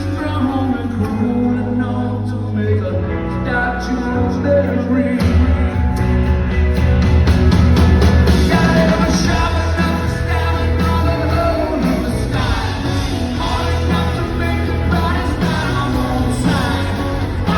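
Rock band playing live, with a lead singer's vocals over the band.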